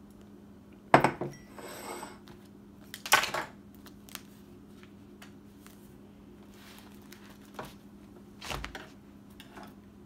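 Porcelain teacup and small objects knocking on a wooden table: a sharp clink about a second in with a brief ring after it, another clatter about three seconds in, then quieter ticks and a dull thump near the end, over a steady low hum.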